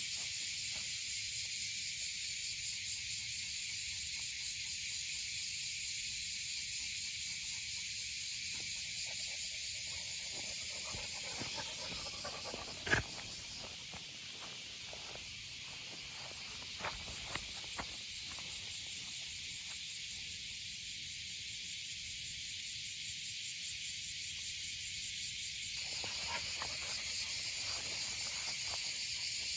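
Steady, shimmering chorus of summer insects. A single sharp click comes about thirteen seconds in, and a few faint ticks follow a few seconds later.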